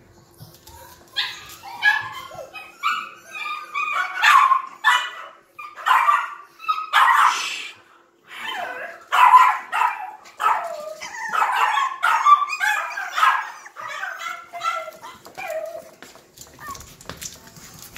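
Yorkshire terrier puppy barking and whining in a long run of short, high-pitched yaps, starting about a second in and stopping shortly before the end.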